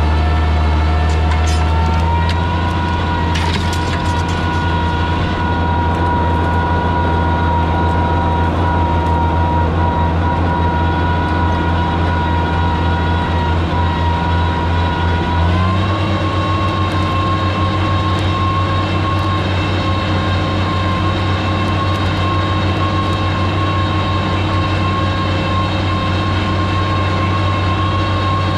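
Oliver 77 tractor's six-cylinder engine running steadily under way while pulling a plow. Its pitch steps up slightly about two seconds in and again about halfway through.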